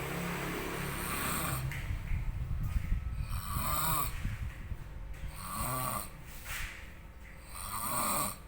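A man in deep sleep snoring loudly, a snore about every two seconds.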